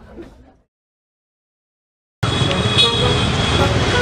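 The tail of the previous sound fades out within the first half-second, followed by dead silence. About two seconds in, busy street traffic with scattered vehicle horn toots cuts in abruptly and runs on loudly.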